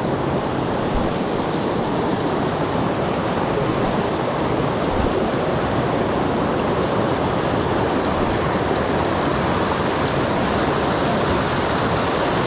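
Steady rushing of a small creek's flowing water.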